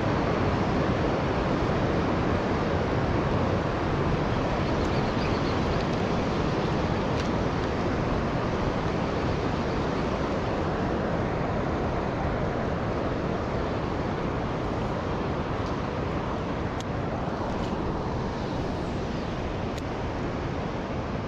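Steady rush of flowing river water mixed with wind buffeting the microphone, an even, unbroken noise that fades a little toward the end.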